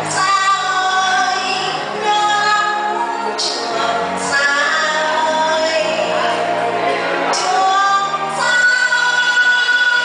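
A woman singing into a microphone over instrumental backing music, with long sustained notes; near the end she holds one long high note.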